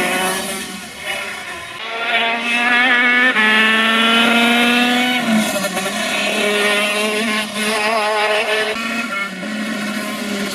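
KZ125 shifter kart's 125cc two-stroke engine revving hard, its pitch climbing for a few seconds, dropping sharply about five seconds in, then holding and wavering.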